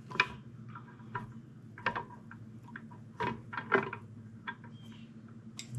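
Sharp metal clicks and clinks of small parts and hand tools inside a 1939 Ford transmission being taken apart. A handful of taps come at irregular intervals, the loudest just after the start, over a low steady hum.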